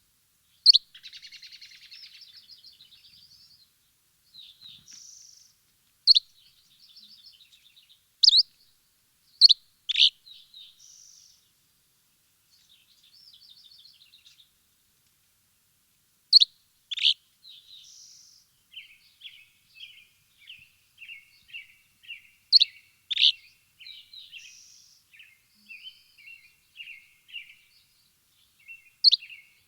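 Songbirds chirping and calling: loud, sharp, downward-sweeping chirps at irregular intervals, between buzzy trills. From about two-thirds of the way through comes a run of quick, short, repeated notes.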